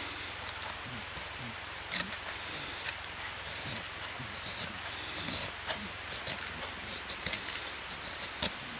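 Small Scandi-ground neck knife shaving curls down a wooden stick to make a feather stick: short, sharp scraping strokes at irregular intervals, roughly one a second, over a steady low hiss.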